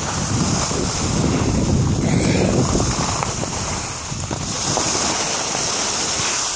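Wind buffeting the camera microphone during a downhill ski run, with a steady hiss of skis sliding over the snow. It eases briefly about four seconds in.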